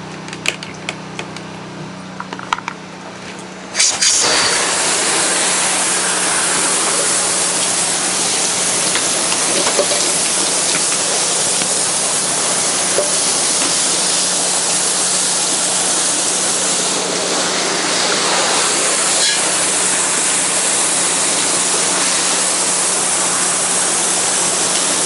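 A pressure washer wand with a low-pressure black-tip nozzle opens up about four seconds in, and a loud, steady hiss of spraying water runs from then on. Under it the pressure washer's engine and pump hum steadily.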